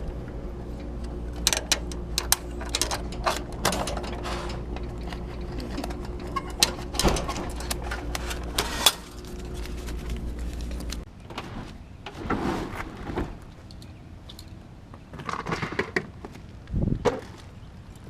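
Knocks, clicks and clatter of parts being handled while a vending machine is opened up and emptied, over a steady electrical hum that cuts off about 11 seconds in.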